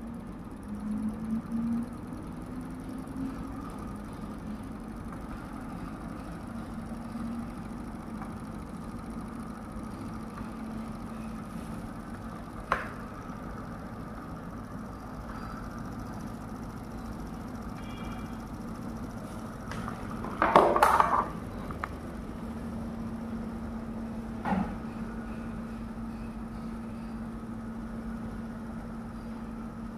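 Small homemade BLDC motor-generator running with a steady hum, rising slightly in pitch over the first few seconds, while it drives a tube light as its electrical load. A sharp click about a third of the way through, a brief clatter, the loudest sound, about two-thirds through, and another knock a few seconds later.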